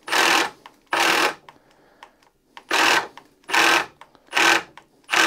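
Milwaukee M18 Fuel Surge hydraulic impact driver boring a 3/4-inch self-feeding auger bit into pressure-treated wood. It runs in short bursts of about half a second, six times, stopping between each. The tool is struggling: it lacks the power to get through the hole.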